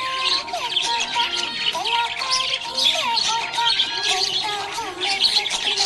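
Children's song music with budgerigars chirping busily over it throughout.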